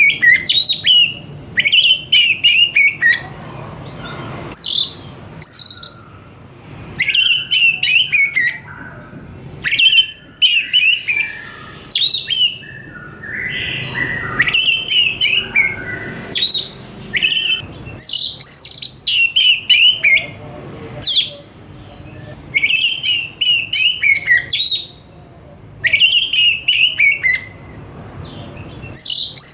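Oriental magpie-robin (kacer) singing loudly in repeated bursts of quick, varied whistled and chattering phrases, each a second to a few seconds long, with short pauses between.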